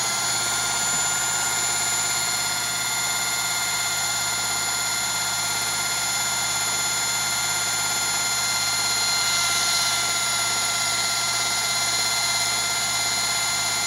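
Electric drive motor spinning a small wind generator at about 1,000 rpm, giving a steady high mechanical whine with several held tones.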